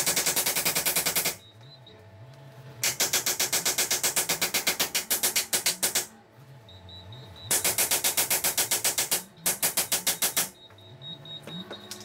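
Jackhammer breaking concrete in repeated bursts of rapid blows, each burst lasting one to three seconds. Between the bursts a low hum rises and falls in pitch.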